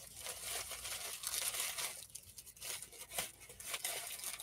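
White tissue-paper gift wrapping crinkling and rustling as a wrapped present is pulled out of a gift bag and unwrapped by hand, in irregular crackles with a short lull about two seconds in.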